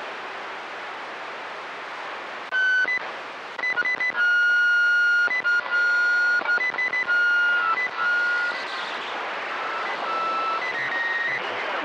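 CB radio receiver hiss, then a transmission of steady whistle-like tones on two pitches, switching on and off in a string of short and long blasts for about five seconds, sinking back into the static with a few fainter tones near the end.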